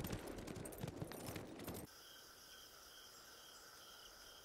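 Horse hoofbeats fading away, then a sudden change to faint night ambience: crickets chirping in a steady pulse, a few chirps a second.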